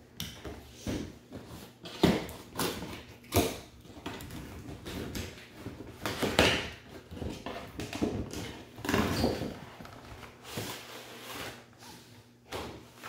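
A cardboard packaging box being handled and pulled apart, its inner cardboard tray scraping and sliding out, with rustling and a few sharper knocks and scrapes about 2, 3.5, 6.5 and 9 seconds in.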